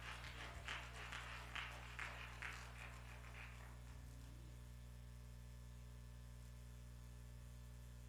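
A steady low electrical hum, with a scatter of faint short knocks or taps over the first three seconds or so. After that only the hum remains.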